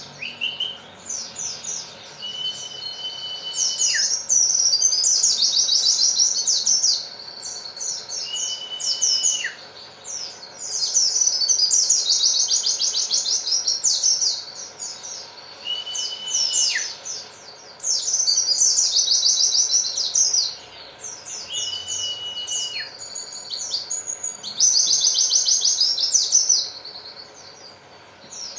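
A white-eye (pleci) singing in fast bursts of high, rapid chirping trills, several seconds each. A held whistle that ends in a quick falling note recurs about every six seconds between them.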